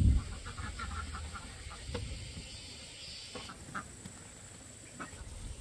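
Ducks quacking: a quick run of calls about half a second in, then a few single calls spaced out.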